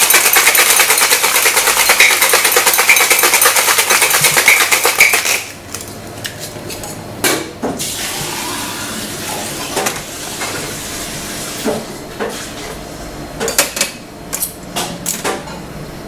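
Ice rattling fast and hard inside metal cocktail shaker tins during a vigorous shake, stopping about five and a half seconds in. After that, scattered metal clinks and knocks come from the tins being handled on the bar top, with a cluster of them near the end.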